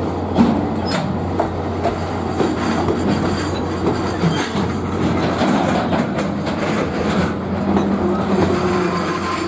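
A JR Freight container train's flat wagons rolling past close by, a steady rumble of wheels on rail with repeated clacks as the wheels cross rail joints.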